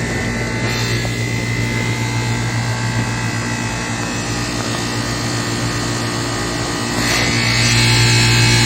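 A machine running steadily with a constant low hum. It grows louder and gains a higher, harsher edge about seven seconds in.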